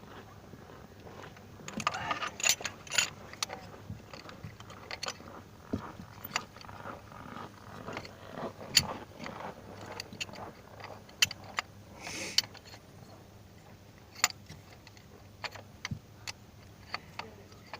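Metal hand tools clinking and clicking irregularly in a car's engine bay during a spark plug change, with short scrapes about two seconds in and again around twelve seconds.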